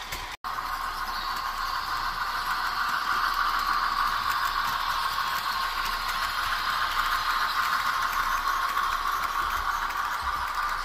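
Broadway Limited model diesel locomotive running with a steady rattling whir. The sound cuts out for an instant about half a second in, then runs on steadily and a little louder.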